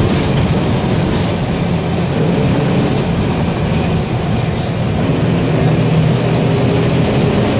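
Diesel engine of a VW 15-190 EOD bus with a Marcopolo Torino body running steadily, a constant low drone, with a few brief rattles near the start and about four and a half seconds in.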